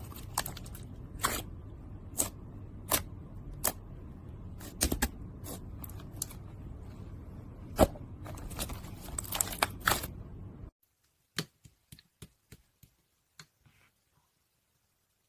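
Slime being squished and poked, giving a string of sharp clicks and crackles over a low hum; the sound cuts off abruptly about ten and a half seconds in, leaving only a few faint clicks.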